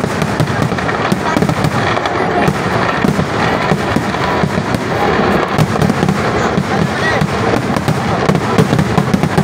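A festival fireworks barrage: crackers and bursts going off in rapid, unbroken succession, a dense continuous crackle of bangs with no pause.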